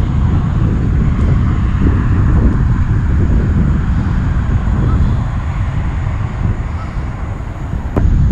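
Wind buffeting the microphone: a loud, gusting low rumble that eases a little toward the end, with one sharp click near the end.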